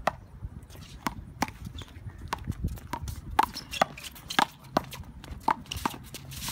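A one-wall handball rally: the rubber ball smacked by hand and slapping off the wall and the court, a quick irregular series of sharp smacks, with sneakers shuffling and stepping on the court.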